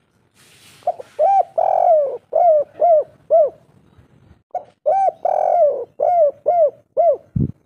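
Spotted dove (tekukur/derkuku) cooing its 'kuk 3' song: two phrases of about six arched coo notes each, with a longer drawn note in the middle of each phrase. A short low thump near the end.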